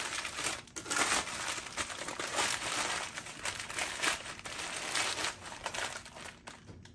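Food wrapper crinkling and crumpling as the leftover half sandwich is wrapped up, a dense run of rustles with a brief pause under a second in, dying away near the end.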